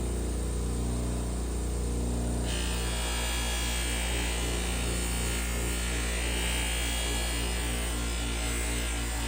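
A steady electric hum and buzz at an even level.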